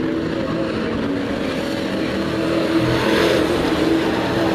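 Engines of a pack of racing sport trucks running at speed in a steady drone, growing louder about three seconds in.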